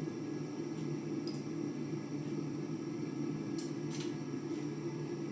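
Forge running with a steady low rushing noise, with a few faint light clicks over it.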